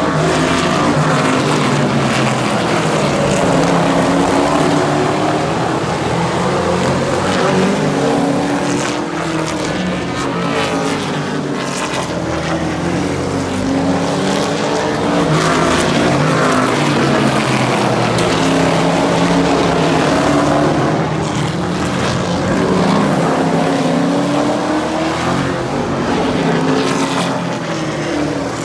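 Race cars running laps on a short oval. The engine notes rise and fall as they sweep past, and the loud sound swells and fades every few seconds as the pack comes around.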